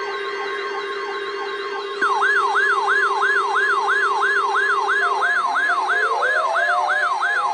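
Weather alert radios sounding their alarms during a weekly test: a steady alert tone under electronic sirens that sweep up and down about three times a second. A much louder siren joins about two seconds in, and a rising whoop comes in about five seconds in.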